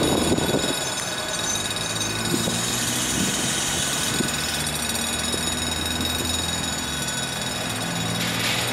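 A General Motors GR-12 diesel-electric locomotive's engine drones steadily as the train approaches at low speed, a low, even throb with its pitch shifting slightly now and then.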